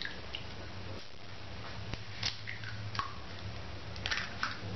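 Raw eggs being cracked open over a small glass bowl: a few scattered light clicks and taps of eggshell, over a steady low hum.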